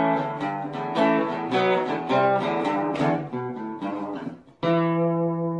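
Outro music on acoustic guitar: strummed chords changing about every half second, a brief pause, then a final chord struck near the end that rings on.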